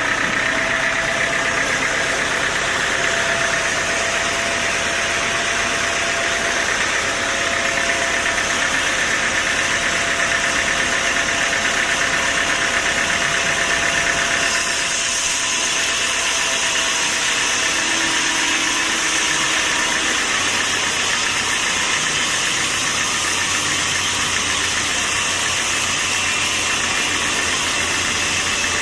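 Sawmill machinery running steadily, a dense mechanical noise with an engine-like drone that shifts in tone about halfway through.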